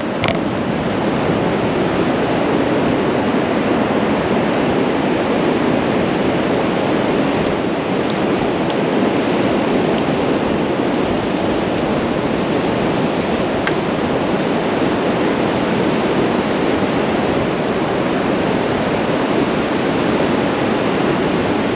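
Steady rushing of surf breaking along the shore, mixed with wind on the microphone.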